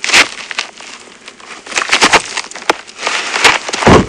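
Irregular crackling and rustling from a wood campfire and feet shuffling on dry ground, with a louder low thump near the end.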